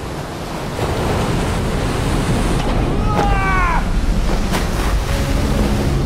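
Storm at sea: heavy waves and wind, rising in level about a second in. About halfway through comes a short falling cry, and near the end steady low tones come in.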